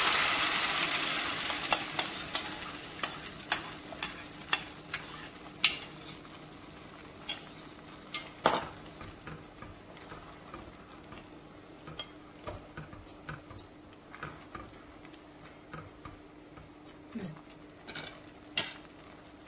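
Pumpkin sauce sizzling as it hits hot oil, the sizzle loud at first and dying away over the first few seconds. Then a spoon stirring the sauce in the pot, clicking and scraping against the sides, the strokes growing sparser toward the end.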